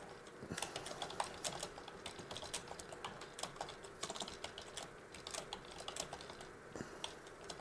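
Typing on a computer keyboard: quick, irregular key clicks that start about half a second in, with a short pause near the end.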